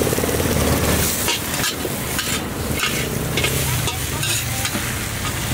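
Metal spatula scraping and knocking against a large metal wok in irregular strokes, while prawns, greens and rice sizzle in hot oil.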